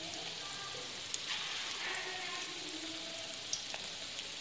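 Lentil-batter vadas deep-frying in hot oil in a steel kadhai: a steady sizzle of bubbling oil with a few faint crackles.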